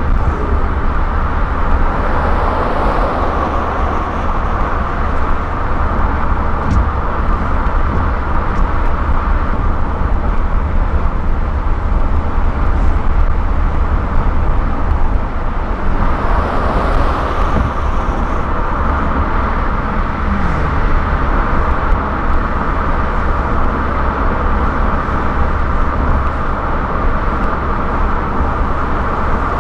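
Steady tyre, wind and engine noise of a car cruising at highway speed. The hiss swells briefly twice, about three and seventeen seconds in.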